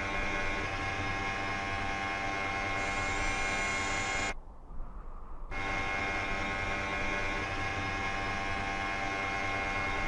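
A steady electric buzzing hum made of many held tones. It drops out for about a second around four seconds in, then resumes unchanged.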